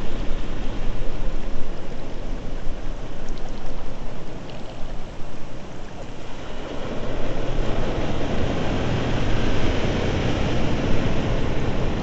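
Rushing seaside noise of wind and small waves on the shore. It grows louder and fuller about seven seconds in.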